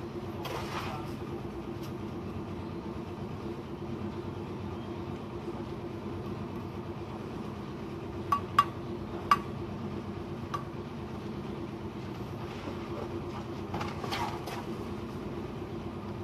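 A steel bricklaying trowel taps a red clay brick down into its mortar bed: three sharp, ringing taps about eight to nine seconds in, then a lighter one a second later. A steady mechanical drone runs underneath, with softer scraping from brick handling near the start and near the end.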